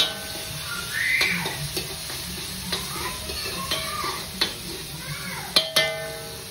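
Prawns and spice paste sizzling in a wok, with a utensil knocking against the pan several times, the last two knocks close together and ringing. Water is poured into the pan about four seconds in.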